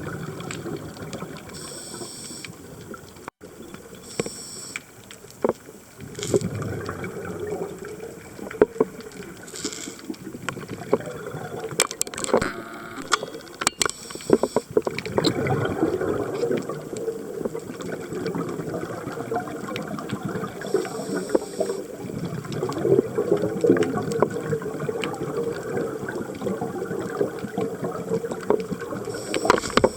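Underwater audio of a scuba dive: divers' exhaled regulator bubbles gurgle in bursts every few seconds, over a steady watery rumble with scattered clicks.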